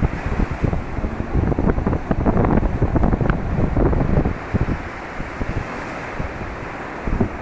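Wind buffeting the microphone, with sea surf behind it; the wind eases for a couple of seconds after the middle, then picks up again at the end.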